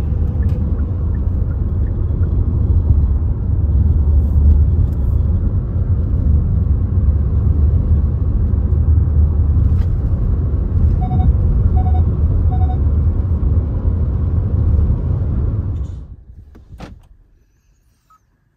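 Steady low rumble of a car's tyres and engine heard from inside the cabin while cruising on the open road, with three short, evenly spaced electronic beeps about two-thirds of the way through. Near the end the rumble cuts off, a single click follows, and then it is nearly quiet.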